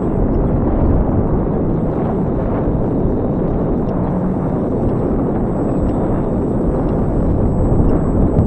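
Steady loud wind rush buffeting the onboard camera's microphone on an E-flite Night Radian electric RC motor-glider in flight, with its nose propeller turning. A faint, steady high whine runs through it.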